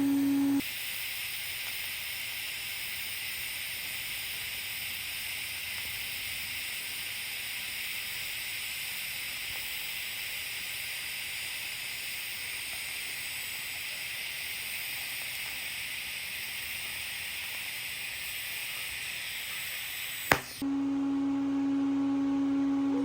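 TIG (GTAW) welding arc on carbon steel pipe, a steady even hiss while a cap bead is laid. It starts about half a second in and cuts off with a sharp click about 20 seconds in.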